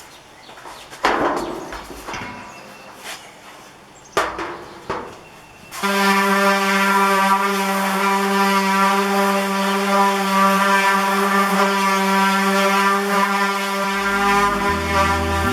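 A few knocks, each with a short ring, then about six seconds in background music starts: one long held horn-like note, with a low bass line coming in near the end.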